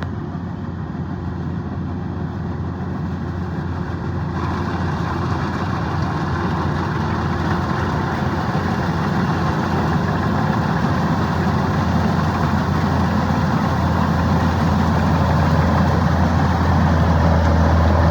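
Kubota DC-105X combine harvester's diesel engine running steadily, growing gradually louder, with a rushing hiss joining about four seconds in.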